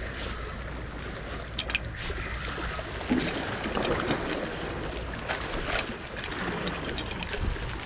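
Small waves washing against the jetty rocks and wind buffeting the microphone, with scattered short splashes and clicks.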